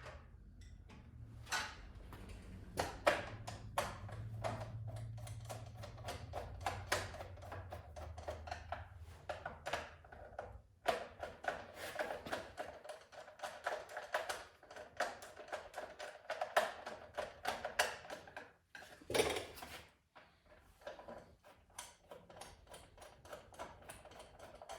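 Irregular clicking, tapping and rattling of hand tools and chainsaw parts being handled and fitted during reassembly, with a faint low hum under the first half.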